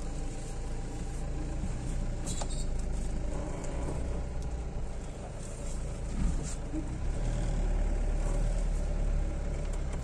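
Car engine and road noise heard from inside the cabin while driving slowly, a steady low rumble that grows louder about seven seconds in.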